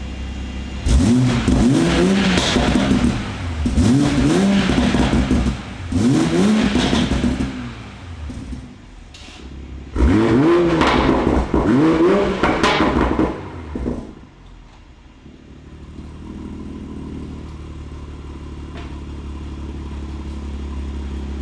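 2020 Toyota Supra engine through a Forged Projects valved exhaust with a catless downpipe, revved in a series of quick blips, a pause, two more blips, then settling back to a steady idle. The exhaust valves are closed, which quiets it and suppresses the popping.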